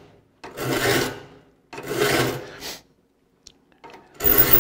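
Triangular saw file rasping across the steel teeth of a rip hand saw, sharpening them: three push strokes, each about a second long, the third after a short pause about four seconds in.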